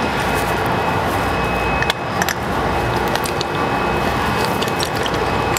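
Steady workshop background noise with a few light clicks as a hydraulic hose's quick-connect fitting is screwed onto the press.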